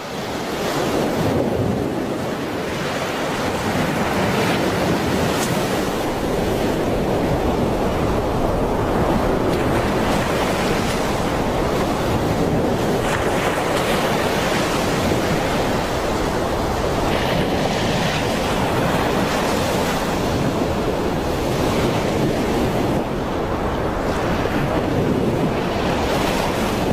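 Flash-flood water in a swollen mountain river, rushing and churning steadily, fading in over the first second.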